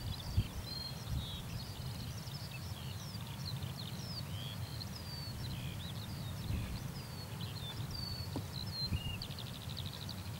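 Small songbirds chirping and whistling throughout, with a rapid trill near the end, over a steady low rumble.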